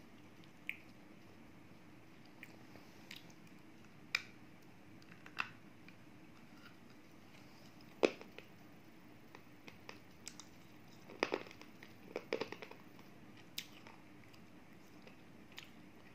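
Water-dipped slate pencil being bitten and crunched between the teeth: sharp, separate crunches, the loudest about eight seconds in, then a quick cluster around eleven to twelve and a half seconds. A faint steady hum lies underneath.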